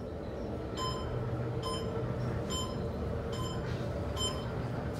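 Hotel glass elevator in motion: a short electronic beep repeats about once every second over the car's steady low running hum.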